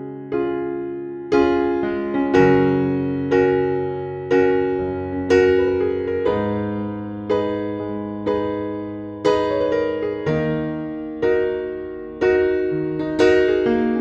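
Background piano music, gentle chords struck about once a second, each ringing and fading before the next.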